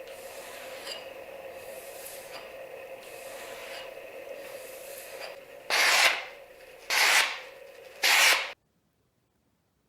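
Knife blade being sharpened on a whetstone: a steady run of stroke-by-stroke rubbing, then three louder strokes about a second apart near the end, cut off abruptly.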